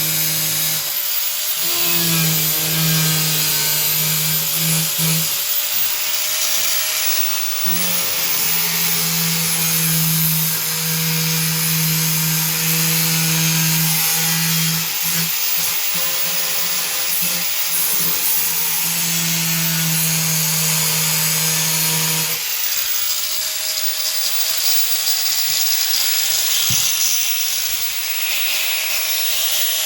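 Power saw cutting through a fiberglass tub surround: a steady motor hum over a rasping hiss, the hum stopping and restarting several times and dropping out about three-quarters of the way through while the hiss continues.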